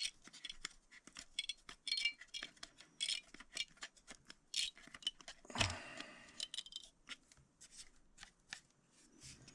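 Hands working the guide fence and screws on a cordless jigsaw: irregular small clicks, scrapes and light metallic clinks, with one louder knock about five and a half seconds in.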